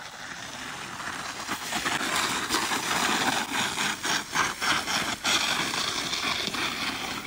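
Plastic snow saucer sliding and scraping over crusty snow with a rider standing on it: a steady hiss that grows louder over the first few seconds, broken by short crackles.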